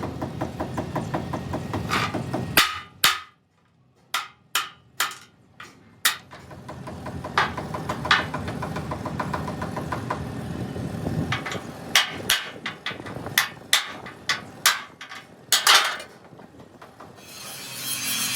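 Hammer blows in a metalworking shop: a quick run of light strikes, then irregular single heavy blows with short pauses between them.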